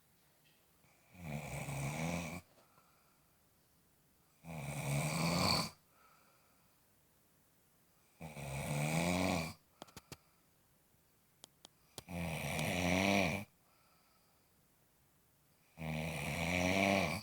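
Snoring in a steady rhythm: five drawn-out snores about every three and a half to four seconds, with near quiet between them. A few short clicks fall in the gap between the third and fourth snores.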